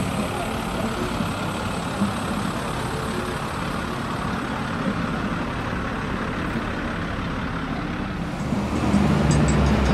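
Garbage truck's diesel engine running as it passes close by, over a steady rushing street noise. Near the end, loud sustained low musical tones begin.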